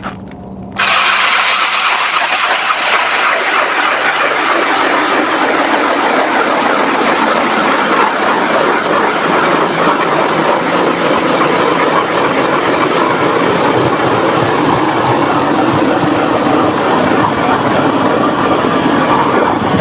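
ION 10-inch electric ice auger starting up about a second in and drilling through lake ice, a loud steady grinding of the blades chipping ice. The blades are hand-sharpened with the burr left on their underside.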